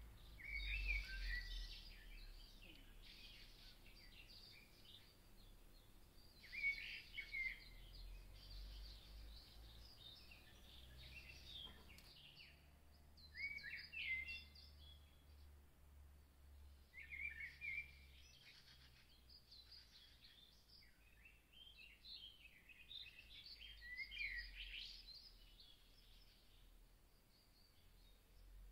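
Faint bird chirping and twittering in short bursts every few seconds, over a steady low hum.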